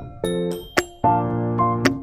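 Background instrumental music: keyboard chords that change about every second, with a sharp percussive hit shortly before each new chord.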